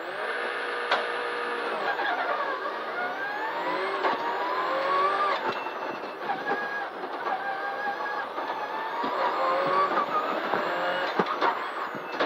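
Rally car engine heard from inside the cabin, pulling away hard and accelerating, its revs climbing and dropping back with each gear change.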